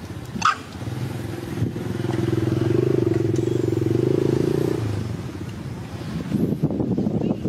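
A small engine passing by, a steady low hum that grows louder over a couple of seconds and then fades away, after a brief high squeak near the start.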